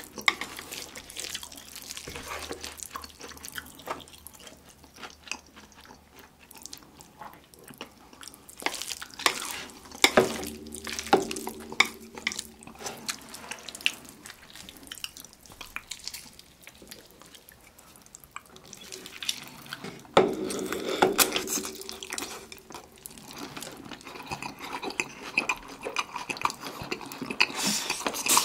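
Close-miked wet eating sounds: chewing and slurping of jjapagetti noodles and sauced fried chicken, with chopsticks clicking against plates. There are louder bursts of eating about ten seconds in and again about twenty seconds in.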